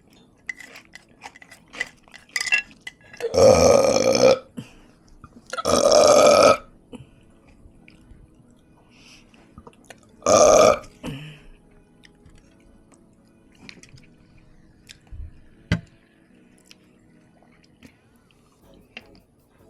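A person burping loudly three times: two long burps about two seconds apart, then a shorter one about four seconds later.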